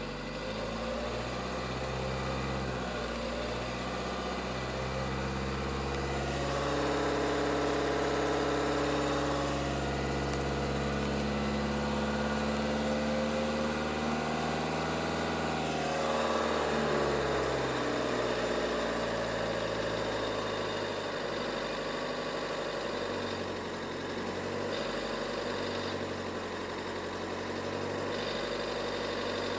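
Renault Megane II's 1.5 dCi four-cylinder turbodiesel idling, with the metallic knock that the owner is recording. The engine note rises a little for several seconds in the middle, then settles back.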